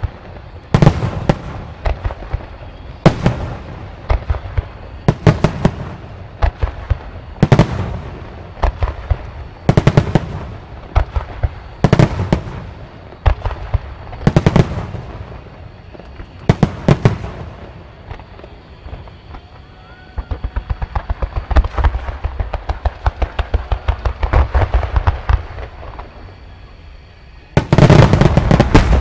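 Aerial fireworks shells bursting one after another, a sharp boom every second or two with echoing tails. From about twenty seconds in comes a run of rapid small crackling pops, then near the end a dense, loud barrage of bursts.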